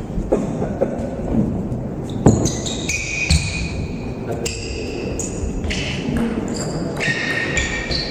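Sounds of a table tennis hall between points: scattered light knocks, and short high-pitched pings and squeaks from the ball and the players moving on the court, at irregular moments throughout.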